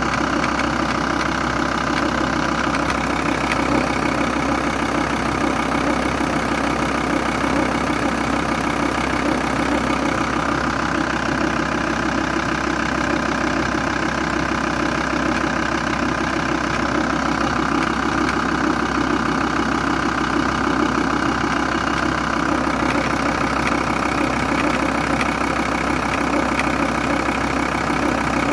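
Volkswagen T4 2.5 TDI five-cylinder diesel engine idling steadily, with a rapid ticking running through the engine note. The noise comes from a defective vacuum pump.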